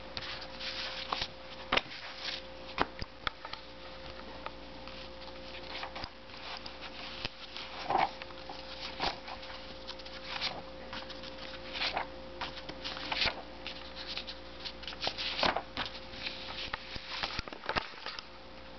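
Old comic-book pages rustling and crackling as they are turned and handled, with many light taps and clicks at irregular intervals. A steady faint hum runs underneath.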